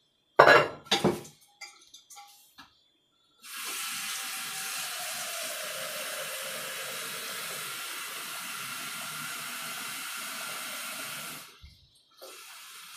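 Kitchen tap running into the sink for about eight seconds, then turned on again briefly near the end. A few sharp knocks come in the first second, before the water starts.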